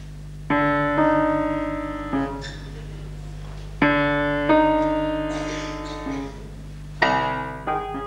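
Grand piano: three pairs of loud chords, the two of each pair struck about half a second to a second apart and left to ring and fade, with short pauses between the pairs. A steady low hum lies underneath.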